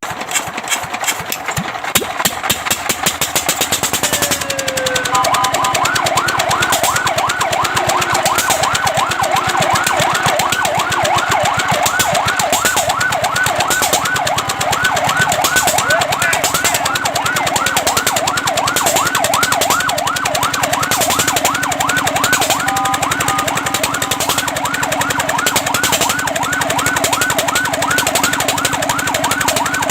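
Fire truck siren on its fast yelp: rapid rising sweeps, several a second, set in after a falling tone about five seconds in, with a brief steady tone partway through. A rapid rattling comes before the yelp starts, and a steady low hum runs underneath.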